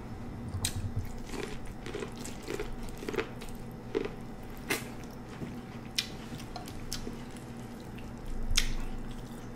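Quiet, scattered wet clicks and smacks of someone eating corn on the cob from a seafood boil, biting and chewing it, over a faint steady hum.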